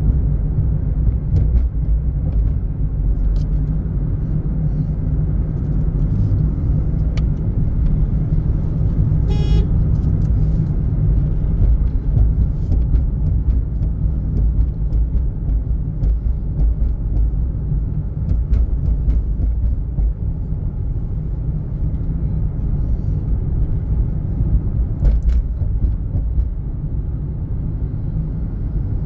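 Steady low rumble of a moving road vehicle, engine and road noise heard while travelling along, with faint clicks and a brief rapid pulsing sound about nine and a half seconds in.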